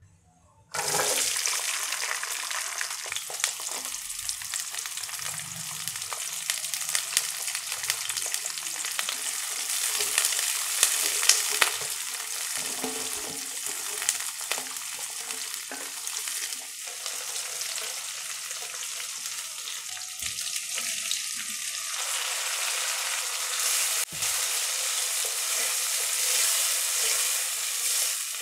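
Shallots sizzling in hot gingelly (sesame) oil in a steel pan. The sizzle starts suddenly about a second in as they hit the oil, and a wooden spatula clicks and scrapes against the pan as they are stirred.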